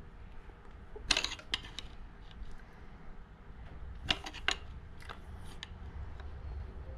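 Steel tool clicking and scraping against the steel tab washer on a Toyota Land Cruiser FJ40 front wheel hub as a locking tab is bent over to lock the hub nut. The sound comes in short clusters of metallic clicks, the loudest about a second in and about four seconds in.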